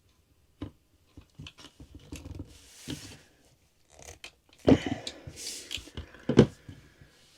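Irregular clicks, snips and crunches of hand tools working on wiring, as wires are cut, stripped and squeezed into wire splice connectors without a crimper, with two louder knocks a little over halfway through.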